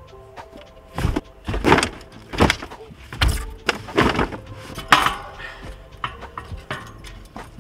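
Car wheels, tires mounted on rims, being dropped and stacked in a hatchback's cargo area, heard from inside the car: about six heavy thuds and clunks in quick succession, then a few lighter knocks.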